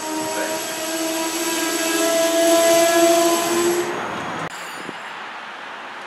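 Train horn sounding one long chord of several steady tones for about three and a half seconds, growing louder, over the noise of a train. The sound drops off suddenly about four and a half seconds in.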